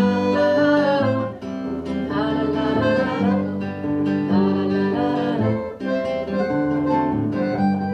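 Acoustic guitar accompaniment playing the instrumental interlude of a French chanson, steady low notes changing about once a second, with a wordless melody line rising and falling over it.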